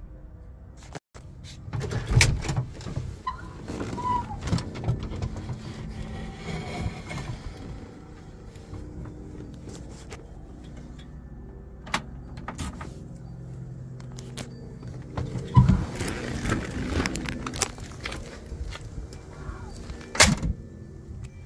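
Handling noises at a 1956 Chevrolet Bel Air with its engine off: scattered clicks, rattles and a jingle of keys, with two heavier thumps standing out about fifteen and twenty seconds in.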